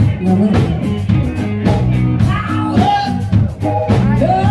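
Live cover band playing a rock dance number: a steady drum beat with bass and guitar, and a singer's voice over it, captured on a cell phone in a bar.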